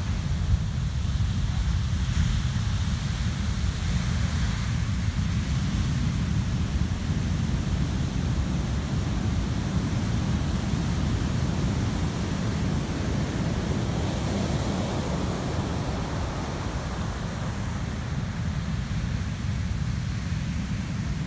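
Large ocean waves breaking and whitewater washing up the beach, a steady low rumble of surf mixed with wind on the microphone.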